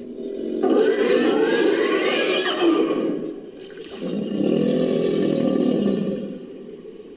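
Synthesised Poposaurus creature call made from mixed crocodilian and dinosaur sound-effect recordings: two long calls, the first with a higher tone rising through it, the second lower and fading out.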